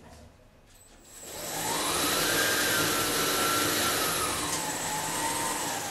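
Belt grinding machine for glass edges switched on about a second in: the motor and sanding belt run up to speed with a rising whine over a steady hiss, then hold steady, the whine easing lower near the end.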